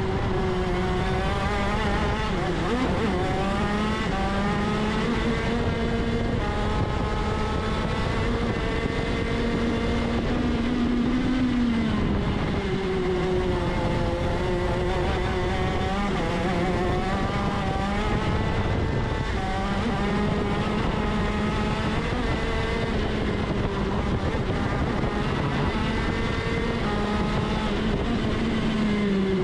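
125cc two-stroke six-speed shifter kart engine at racing speed, its pitch climbing in steps as it is shifted up through the gears and falling sharply when the driver slows for corners.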